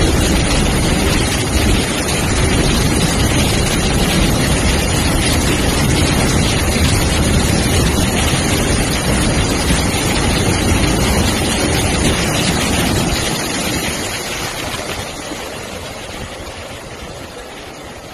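Freight train of open wagons running at speed through floodwater over the tracks: a loud, steady rush of churned and sprayed water mixed with the train's running noise, fading over the last five seconds as the train draws away.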